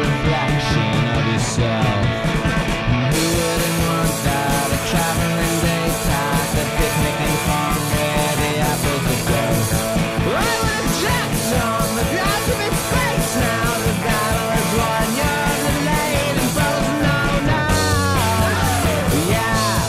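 Rock music with a steady beat, laid over the footage; the cymbals and upper end of the mix come in about three seconds in.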